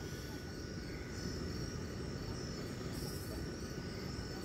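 Crickets chirping steadily in a high, continuous chorus over a low, even rumble.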